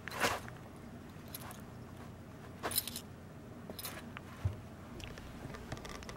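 A Russian blue kitten and a border terrier play-wrestling on a cushioned dog bed: soft rustling of fur and fabric with brief scuffles, the loudest near the start and around three seconds in, and a dull thump a little after four seconds.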